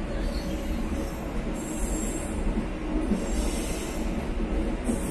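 Passenger train running slowly out of a station, heard from its rear end: a steady low rumble from the moving train, with short high-pitched wheel squeals about a second and a half in, about three seconds in, and near the end.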